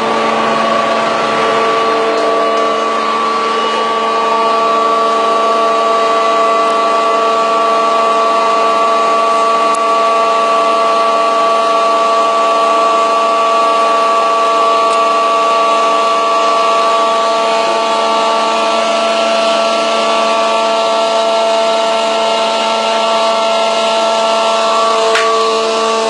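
Workshop machine running steadily, a constant motor whine made of several steady tones, with a short click near the end.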